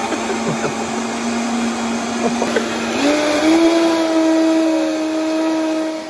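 Countertop blender motor running loud and steady, blending coffee into a froth; its hum steps up in pitch about halfway through as the speed is turned up.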